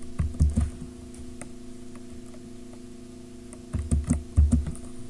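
Computer keyboard keys clicking as code is typed: a few keystrokes at the start, a pause, then a run of keystrokes near the end. A steady low hum runs underneath.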